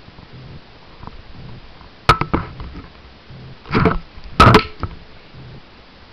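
Handling noise from a handheld camera being moved: a few sharp knocks about two seconds in, a short rubbing scrape near four seconds, then the loudest knock just after, over a faint hiss.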